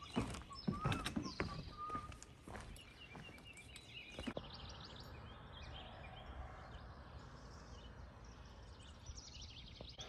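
Footsteps knocking down wooden stairs, with birds chirping. After about four seconds the steps stop and only a quiet steady outdoor background with faint birdsong is left.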